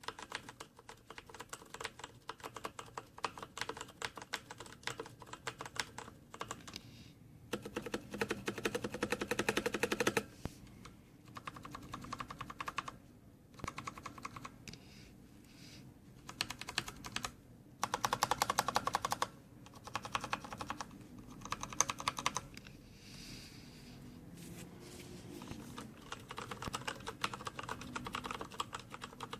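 Typing on a Patriot Viper V760 mechanical keyboard with Kailh Brown switches: key presses in runs of rapid clacks, broken by short pauses.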